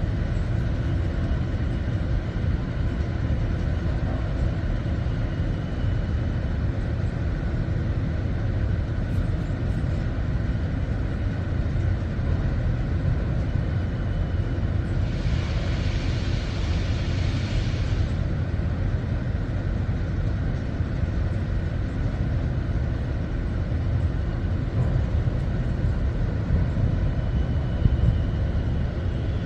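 Ship's machinery running: a steady low rumble with faint steady tones above it. A hiss rises over it for about three seconds around the middle.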